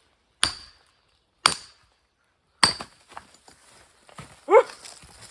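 Three hammer blows on metal driven into a firewood log, about a second apart, each with a short ringing clink; the log is not splitting. A short vocal cry follows near the end.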